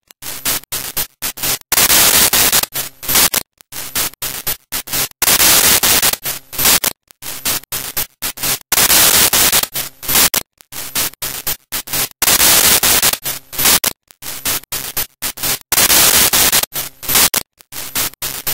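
Loud hissing static that cuts in and out irregularly, in chunks of a fraction of a second to about a second and a half, with abrupt dropouts between them.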